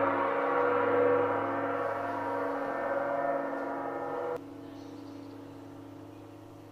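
Sound-healing metal instrument ringing on after a strike, with many overtones. About four seconds in, the higher tones cut off suddenly, leaving one lower hum fading away.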